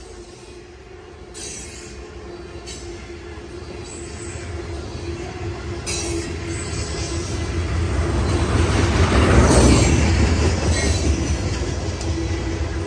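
Coal hopper cars of a freight train rolling past: a steady rumble of steel wheels on rail with a thin, steady wheel squeal and a few sharp clicks of wheels over rail joints. The sound grows louder to a peak about ten seconds in.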